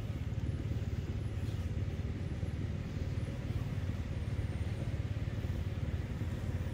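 Steady low rumbling noise on the microphone, with no engine note.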